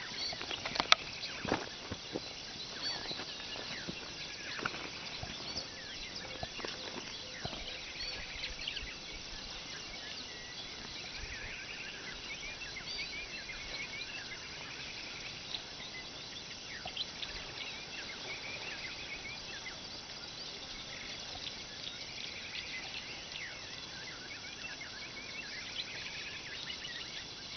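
Outdoor ambience: many short bird chirps and calls over steady background noise, with a few sharp clicks in the first several seconds.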